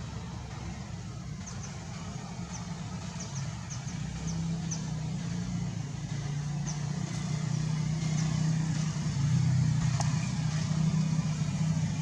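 A low steady motor-like drone, growing louder through the second half, with a scattering of short faint high chirps in the first half.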